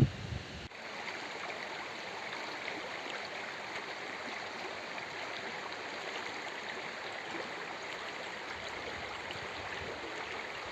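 A brief buffet of wind on the microphone at the very start, then a steady babbling of running water, like a small stream flowing over stones, with fine trickling clicks.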